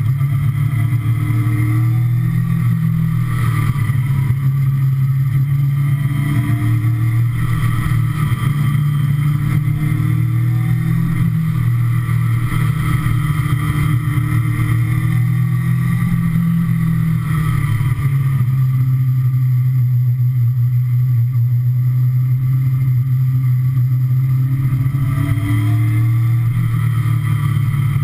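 Kawasaki ZX-6R sport bike's inline-four engine running under way, its revs rising and easing several times as it is ridden through bends, mixed with steady wind rush on the bike-mounted camera.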